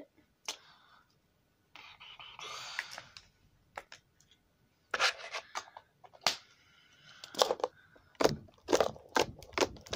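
Handling noise close to the microphone: a soft rustle in the first few seconds, then a quick string of sharp clicks, knocks and scrapes in the second half, several with heavy thumps.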